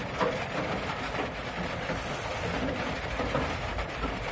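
Kitchen knife slicing a peeled banana into thin strips on a wooden cutting board, with a few faint, irregular taps of the blade against the board, over a steady background noise.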